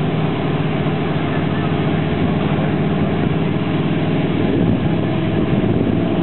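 Off-road race pickup trucks' engines idling steadily with a low, even pitch, staged at the start light.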